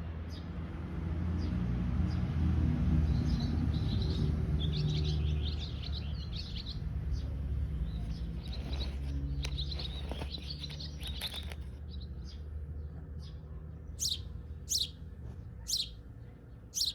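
Small birds chirping and twittering over a steady low background rumble, with a few loud, sharp single chirps near the end.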